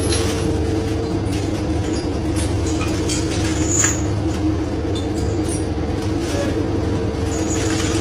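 Fishing boat's engine and deck machinery running with a steady drone and low rumble, with scattered clatter of scallop shells being sorted on the deck and a short high squeak near the middle.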